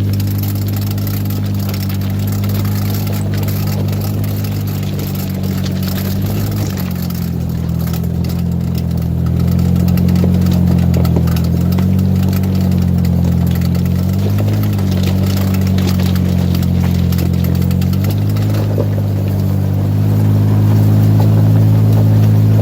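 Jeep engine running at low trail speed in four-wheel drive, its pitch rising and falling several times as the throttle changes. Quick ticking runs over the top, the clicking from the front end that shows up only in four-wheel drive; the driver wonders whether it is the front driveline.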